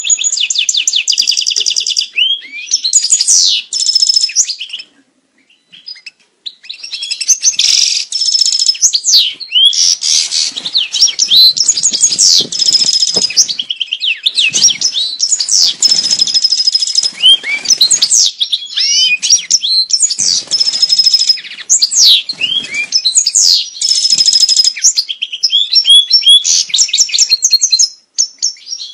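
European goldfinch singing its mating song: high, fast, tumbling twitters mixed with rapid trills and short whistled notes. The song breaks off briefly about five seconds in, then runs on.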